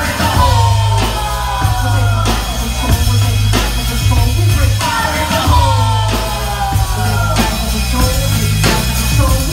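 A live band playing loud music with heavy, pulsing bass and drums. A high line slides down in pitch three times, about every four and a half seconds.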